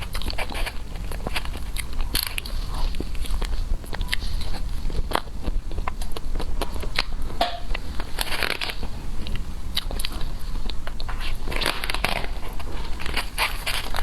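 Close-up eating sounds: biting and chewing with many small crackly clicks, busier about halfway through and again near the end, over a steady low hum.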